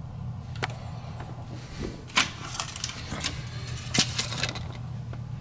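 A cardboard inspection tag being handled on a fire extinguisher: a few sharp clicks and papery rustles, loudest about two and four seconds in, over a steady low hum.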